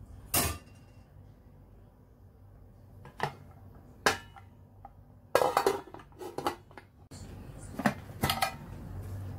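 Metal pot lid clinking against a stainless steel cooking pot: a few single knocks, then a quick cluster of clattering knocks about halfway through, and two more clinks near the end.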